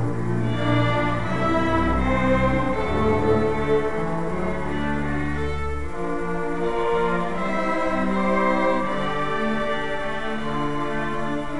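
High school string orchestra playing, cellos and violins bowing sustained notes. The deepest bass notes stop about halfway through while the higher strings carry on.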